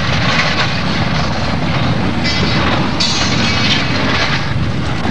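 Derailing Conrail freight train: cars rolling, grinding and scraping along the track in a loud, continuous rumble, with a high metallic screech from about two to four seconds in.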